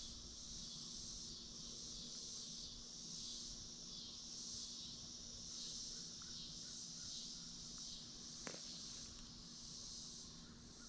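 A chorus of insects buzzing steadily in a high band, swelling and ebbing in slow waves. There is one faint click about eight and a half seconds in.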